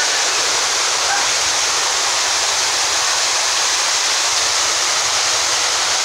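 Waterfall and the cascade over rocks below it, rushing in a steady, loud roar of falling water.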